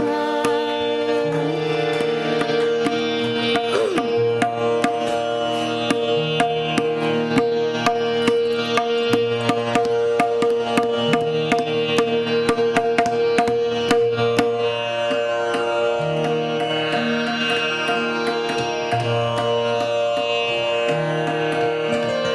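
Hindustani classical music in raga Rageshree: tabla playing a busy run of strokes over a held harmonium melody and tanpura drone, with the strokes thickest in the middle.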